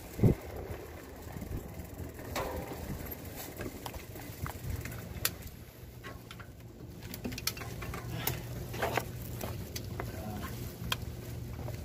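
Bicycle being wheeled and set down: scattered clicks and knocks, with a louder thump just after the start, over a steady low hum. A bird calls now and then.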